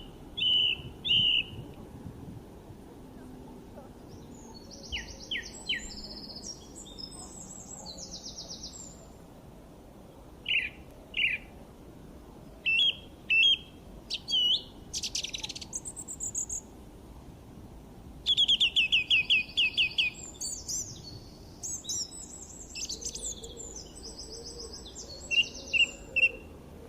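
Songbirds singing: scattered short chirps and quick trilled phrases, with a loud run of rapid repeated notes about two-thirds of the way through, over faint steady background noise.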